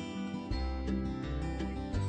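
Background music led by acoustic guitar, a plucked tune over low bass notes that change about every half second.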